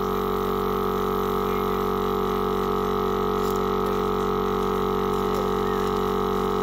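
Portable air compressor running with a steady droning hum, inflating an off-road tyre to seat its bead on the rim.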